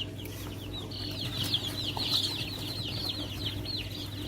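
A brood of young chicks peeping all together, a constant overlapping chorus of short, high, falling peeps, over a steady low hum.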